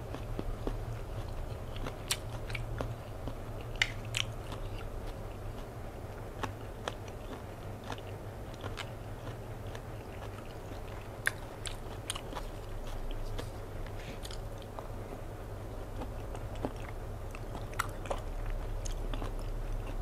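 Close-miked chewing of raw salmon, with scattered wet mouth clicks and smacks, over a steady low hum.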